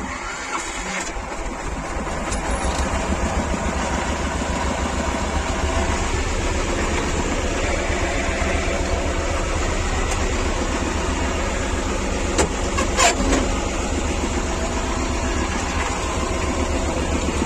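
Vladimir T-25 tractor's two-cylinder air-cooled diesel starting and then running with an even low chug that gets a little louder over the first few seconds. A couple of short knocks come about two-thirds of the way through.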